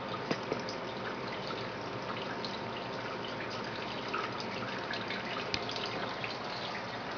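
Water splashing and trickling through a homemade evaporative cooler's rain chamber, with scattered drips, as its pump runs at full power and the cooler fills. A faint steady hum sits underneath.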